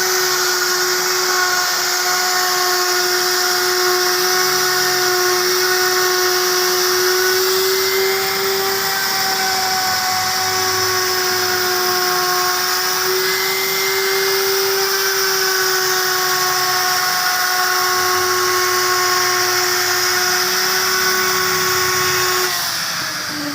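Wood router's motor running at high speed with a steady whine, its pitch wavering slightly. Near the end the whine falls in pitch as the router winds down.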